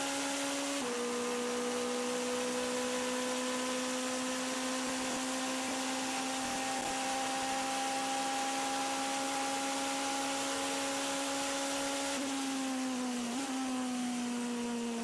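Onboard sound of a Toyota TS040 Hybrid LMP1 race car at full throttle. Its V8 engine holds a high, steady note that climbs slowly after a gear change about a second in. Near the end the engine note falls with a downshift, all over a constant rush of wind.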